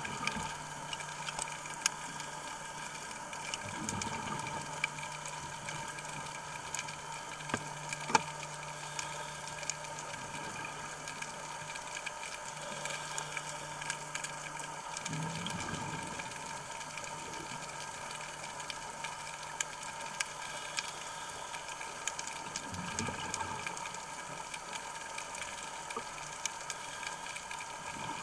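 Underwater sound on a coral reef: a steady hum with scattered sharp clicks, broken three times by the rushing burble of a scuba diver's exhaled regulator bubbles, each lasting a second or two.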